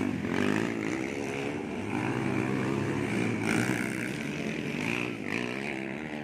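Dirt bike engines revving during a motocross race, the pitch rising and falling as the riders accelerate and ease off.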